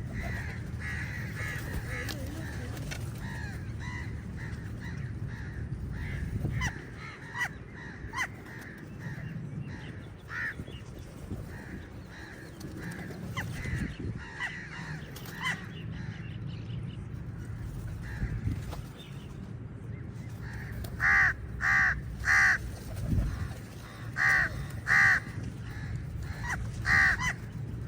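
Several crows cawing repeatedly, with a run of loud, harsh caws in groups of two or three in the last several seconds. A steady low rumble runs underneath.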